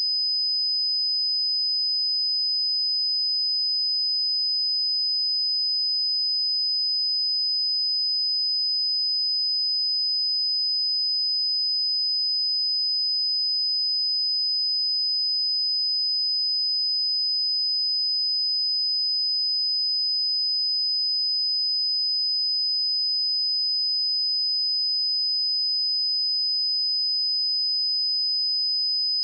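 A pure 5015 Hz sine-wave test tone, one steady high-pitched whistle held at a constant level, generated to check speakers or headphones.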